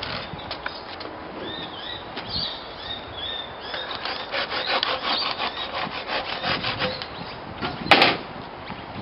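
Hand saw cutting through a eucalyptus branch fork in quick back-and-forth strokes, busiest in the second half, then a single sharp crack near the end, the loudest sound.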